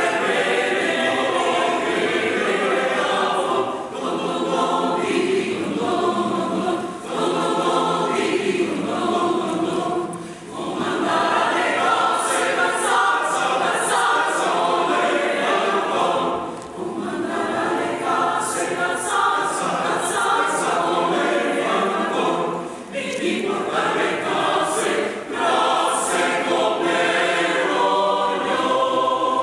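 A choir singing, in sustained phrases with brief pauses between them.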